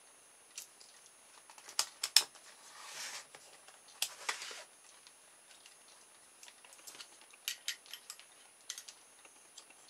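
Hands handling multimeter test probes and the plastic battery holder of a motor kit: scattered small clicks and taps, loudest about two seconds in, with two brief rustles about three and four seconds in.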